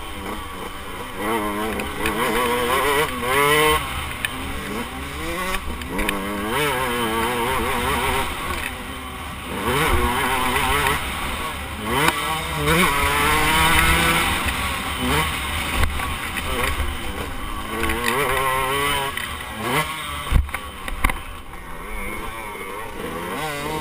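KTM 125 two-stroke motocross bike's engine revving up and dropping back again and again as the rider shifts through the gears, with wind noise on the on-bike camera. A few sharp knocks come near the end.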